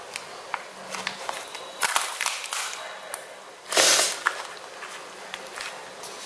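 Fingers pressing and kneading thick old slime in a plastic tub: small sticky clicks and crackles, with one loud squelch just before four seconds in.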